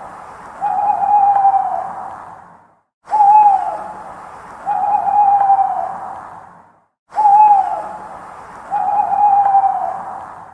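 Owl hooting: a short falling hoot followed by a longer, drawn-out hoot that sinks at its end, the identical pair repeating about every four seconds with abrupt silences between, as a looped recording.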